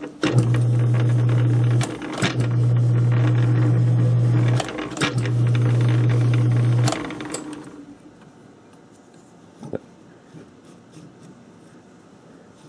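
South Bend lathe running under its motor in three short bursts of about two seconds each, started and stopped in turn, while a die in a tailstock holder cuts a 3/8 thread on a rod. The hum stops about seven seconds in, leaving a low background with a single click near ten seconds.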